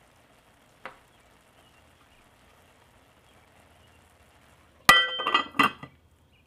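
Lid set down onto a cooking pot: one sharp clank with a brief ringing, followed by a few smaller rattles as it settles on the rim, about five seconds in. Before it there is only a faint steady hiss and one small click.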